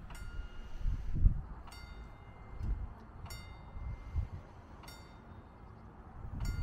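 Level-crossing warning bell striking at a steady pace of about one ring every second and a half, each ring decaying quickly. Under it is an uneven low rumble.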